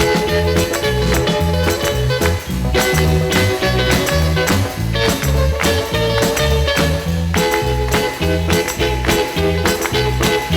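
Background music with a steady upbeat rhythm and bass line, in a swing or ska style.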